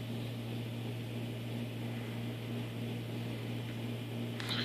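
Steady low hum with a fainter higher tone over a soft, even hiss: indoor room tone, with a brief faint noise near the end.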